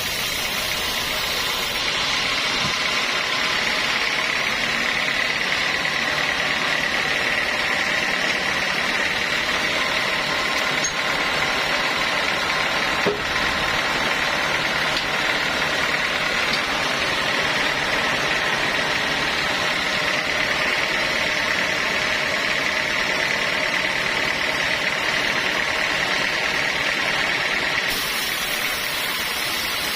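Sawmill saw running steadily through a long timber beam: a steady high whine over a broad rushing machine noise.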